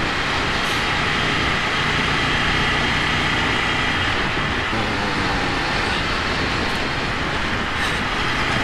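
Ducati Monster 797's air-cooled L-twin engine running steadily while riding, mixed with wind rushing over the helmet- or bike-mounted action camera's microphone.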